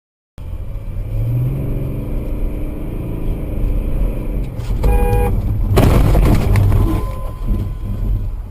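Motor vehicle engine running in traffic, its note rising early on, then a short horn honk about five seconds in, followed at once by a loud rough burst of noise lasting about a second.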